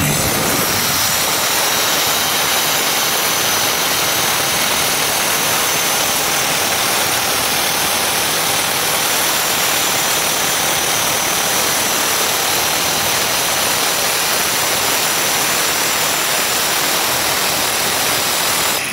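Makita angle grinder fitted with a grinding-cutter blade, running at full speed while cutting into a stone slab: a steady high whine over the dense hiss of the blade on stone.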